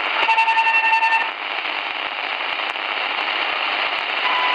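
Portable shortwave radio tuned near 2130 kHz, on the railway communication channel, playing steady static hiss from its speaker. Near the start a pulsing, buzzy tone comes through for about a second, then only the hiss remains.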